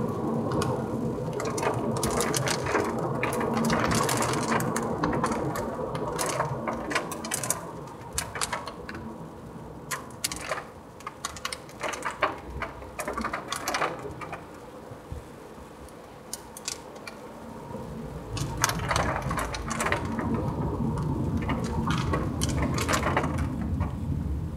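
Car cabin noise while driving: engine and road noise, which eases off for several seconds in the middle, where a run of sharp clicks is heard, then rises again near the end as the car picks up speed.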